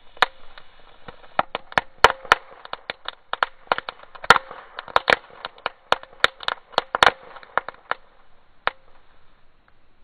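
A small ground firework burning on pavement: a steady fizzing hiss under a dense, irregular run of sharp crackles. Both stop about a second before the end.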